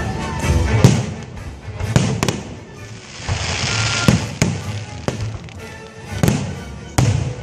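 Aerial fireworks bursting, with sharp bangs about once a second, some in quick pairs. A hissing crackle swells near the middle. Music plays underneath.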